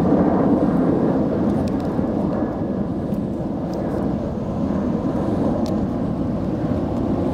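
Steady low rumble of outdoor background noise, even throughout, with no distinct events.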